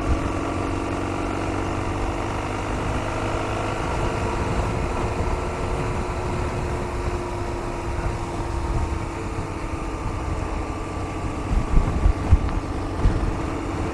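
2005 BMW R1200 GS boxer-twin engine running at a steady cruise while the motorcycle is ridden, its note drifting only slightly, over a heavy low rumble with a few louder bumps near the end.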